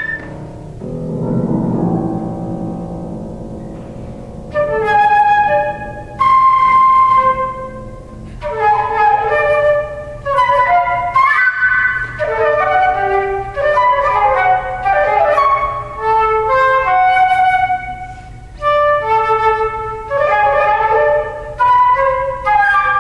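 Concert flute playing a melody with grand piano accompaniment. The piano plays alone for the first few seconds, then the flute comes in about four and a half seconds in and plays on in short phrases.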